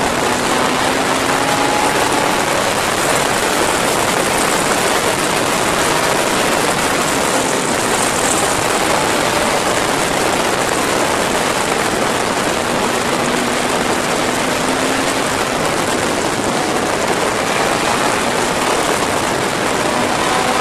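Steady rush of wind over the microphone of a Yamaha motorcycle riding at speed, with the engine's note faint underneath.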